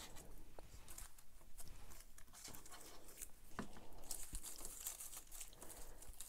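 Faint rustling and light taps of paper being handled and pressed down on a scrapbook page, with a brief stretch of brighter rustling near the end.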